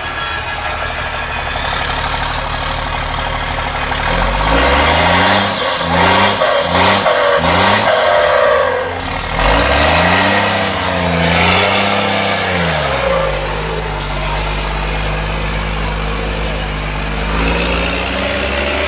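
A vehicle engine with a loud exhaust idling, then revved in about five quick blips with sharp cracks among them, followed by one longer rev that falls back to a steady idle.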